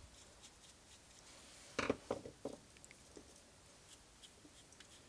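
Screwdriver and small screws being worked on an SU carburettor float chamber lid: quiet handling with a short cluster of sharp metallic clicks about two seconds in, then a few faint ticks.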